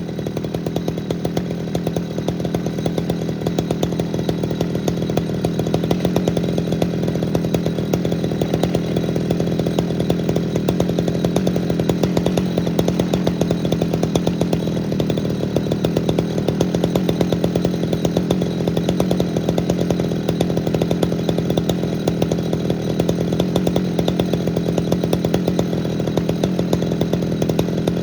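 Poulan 4900 CounterVibe 77cc two-stroke chainsaw engine running steadily, on a rebuilt carburetor with its governor deleted.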